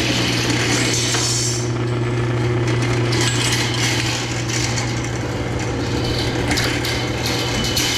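A steady low machine hum with irregular metallic clattering and clinking over it.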